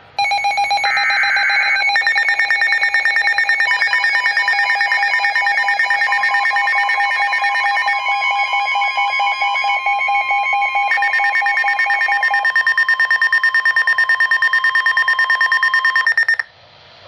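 Weather radio emergency alert for a tornado warning. It starts with a short burst of digital alert-header data, then several electronic alarm tones at different pitches beep rapidly together for about fifteen seconds and cut off abruptly.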